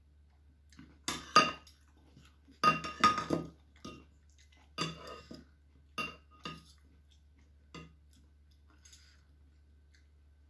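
A metal fork and spoon clinking and scraping against a ceramic dish while eating, in short clusters of sharp, briefly ringing clinks, the loudest a little over a second in and around the third second.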